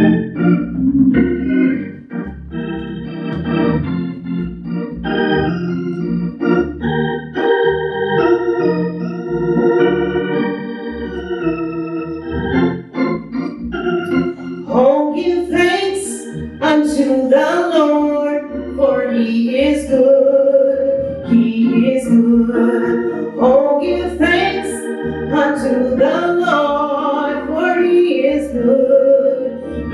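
Organ playing a slow introduction of held chords; about halfway through, a woman begins singing a solo into a microphone over the organ.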